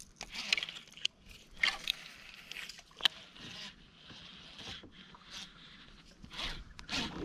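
Scattered clicks, scrapes and rustles of hands handling a baitcasting rod and reel, with one sharp click about three seconds in.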